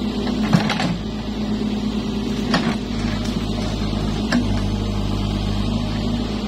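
Case backhoe loader's diesel engine running steadily while the backhoe arm digs. Three short clanks from the bucket and linkage come about two seconds apart. The engine note grows fuller about three seconds in.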